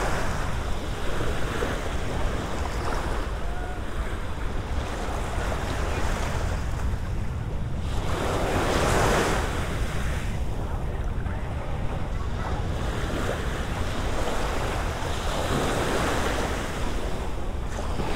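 Small waves washing up onto a sandy beach at the water's edge, swelling and falling back about every six or seven seconds, loudest about halfway through. Wind rumbles steadily on the microphone underneath.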